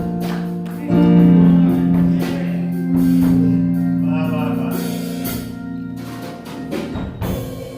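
Church band music: held keyboard chords with drum and cymbal hits, fading down toward the end.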